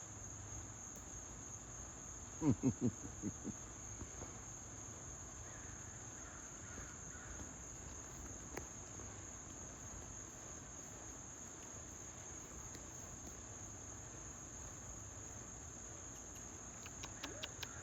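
Insects droning steadily in one continuous high-pitched band. About two and a half seconds in, a brief run of four or five loud, low pulses stands out.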